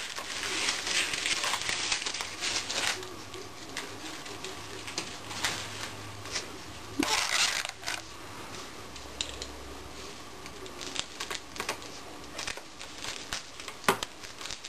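Satin fabric rustling, with scattered small clicks and taps, as a resin ball-jointed doll (DollFamily-H LinFeng) is handled and posed in its box. A sharp click comes near the end.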